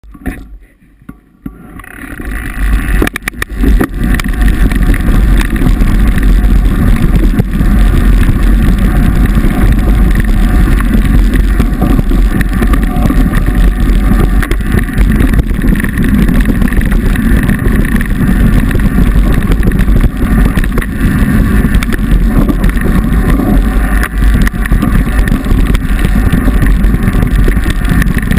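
Mountain bike descending a gravel single track: wind buffeting the action camera's microphone and the tyres and frame rattling over the rough trail, a loud, deep, continuous rumble. It starts with a few handling clicks on the camera and builds up over the first two or three seconds as the bike gets going.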